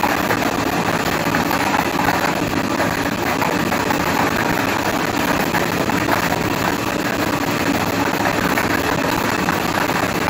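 Lottery draw machine mixing its plastic balls: a dense, steady clatter of balls tumbling against the clear acrylic drum, over a constant mechanical running noise.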